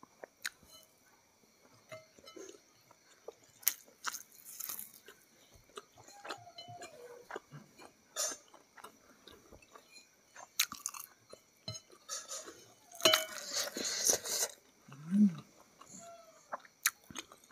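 Close-miked eating sounds of a person chewing rice and fried chicken: wet chewing, lip smacks and small clicks, with a louder, denser stretch of chewing about thirteen seconds in.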